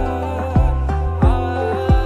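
Background music with a steady beat: a deep drum hit about every two-thirds of a second under held chords.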